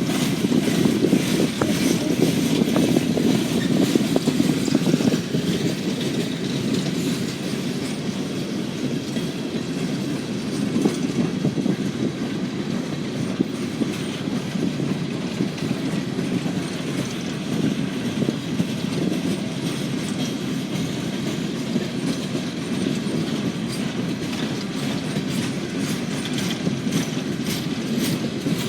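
CSX freight train's cars rolling past in a steady rumble, with wheel clicks over the rail joints. The sound is a little louder for the first five seconds or so.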